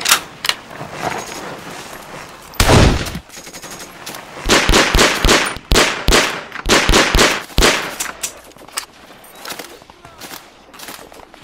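Battle gunfire sound effects: single loud shots, a heavier shot about a third of the way in, a dense run of rapid shots in the middle, then fainter scattered shots near the end.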